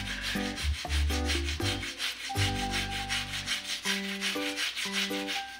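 Soft-bristled old toothbrush scrubbing floor-tile grout in quick back-and-forth strokes, a first scrub that loosens grime after the cleaner has soaked in. Background music with a melody and deep bass plays along.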